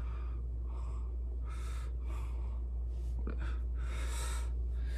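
A man's audible breaths, several short breathy exhalations, the longest near the end, over a steady low hum.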